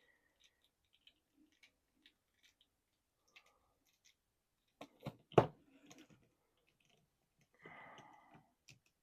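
Faint handling of a plastic action figure: scattered small clicks from its joints being moved, with a sharper cluster of clicks about five seconds in and a short scraping rustle near the end.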